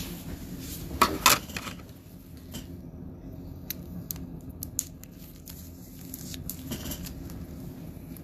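Handling of trading-card packs and plastic card cases: a short, loud crinkle with two snaps about a second in, then scattered light clicks and rustles.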